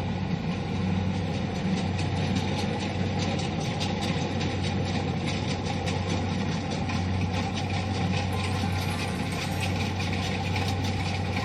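Kubota DC-70 combine harvester running steadily while harvesting rice. A constant diesel engine drone sits under a rapid, even clatter from its cutting and threshing mechanisms.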